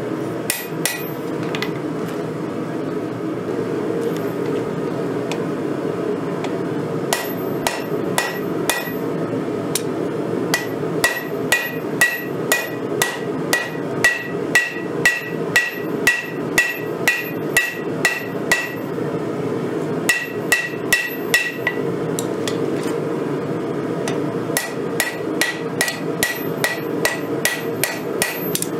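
Hand hammer striking red-hot knife-blade steel on a 132-pound Vevor steel anvil, about two blows a second in runs broken by pauses, each blow with a short ring from the anvil. A steady low rushing noise runs underneath.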